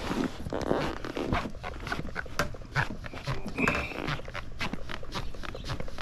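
A wet silicone bike grip being forced and twisted onto a handlebar tube, lubricated with alcohol and hand sanitizer: rubbery squeaks, squelches and handling clicks, with one short high squeak about three and a half seconds in.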